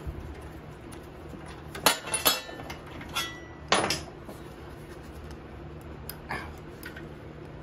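Hand tools clinking against metal while intake studs are worked out of a small engine: a handful of sharp metallic clinks and knocks spread over several seconds, one ringing briefly.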